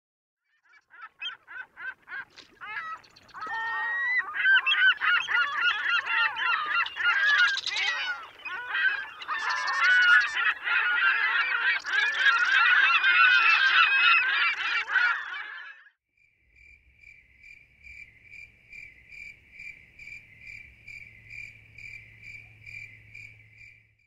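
A flock of birds calling over one another in rapid, overlapping honking calls, which stop abruptly about two-thirds of the way through. After that a single high chirp repeats steadily, about twice a second.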